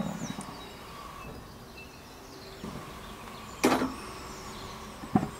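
A single sharp knock about two-thirds of the way through as a ceramic baking dish meets the metal cooking grate of a gas grill, over a faint steady hum, with a few softer handling clinks.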